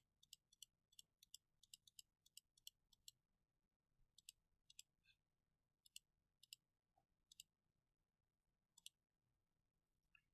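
Near silence with a run of faint, short computer-mouse clicks, the clicking thinning out in the second half.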